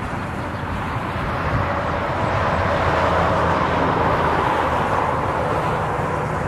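A vehicle passing on the highway, its tyre and road noise swelling to a peak about halfway through and easing off, over a steady low rumble.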